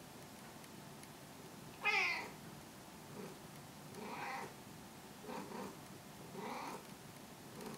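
Tabby cat meowing: one loud meow about two seconds in, then several softer, shorter meows.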